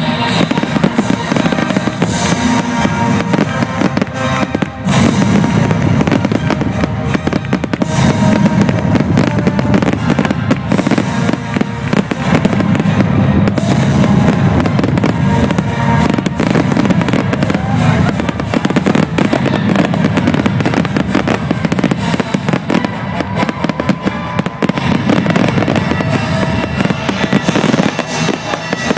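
Fireworks going off in a dense, continuous barrage of bangs and crackles, with music playing underneath.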